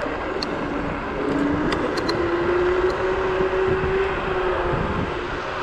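Zero 10x electric scooter at riding speed: a motor whine that rises a little in pitch as it speeds up, then eases, under steady wind rush on the microphone and tyre noise. A few faint light clicks.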